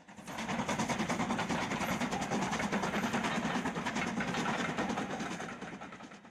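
Steam locomotive running fast and working hard, its exhaust chuffs coming in a rapid, even beat over a steady hiss. The sound fades in at the start and fades out near the end.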